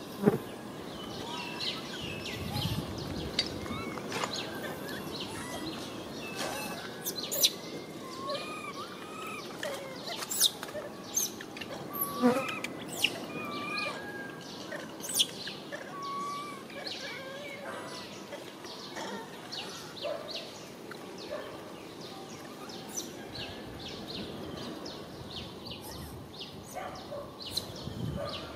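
Outdoor ambience with birds chirping now and then and scattered short, sharp clicks.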